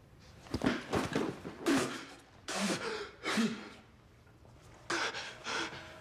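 A young man gasping and breathing hard in shock, in several ragged bursts with a pause in the middle, after a short knock about half a second in.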